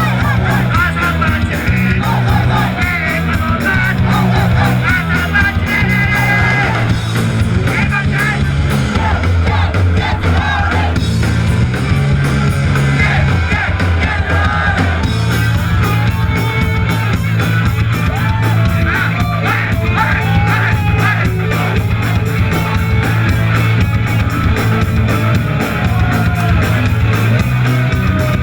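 Live punk rock band playing loudly, with shouted, yelled vocals over distorted guitars, bass and drums.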